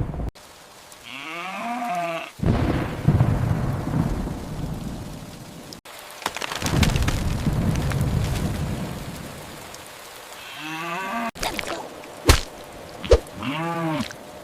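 Thunderstorm: two long rolls of rumbling thunder over rain, with two sharp cracks near the end. Farm animals call three times through it, at the start, around ten seconds in and near the end, each call rising and falling in pitch.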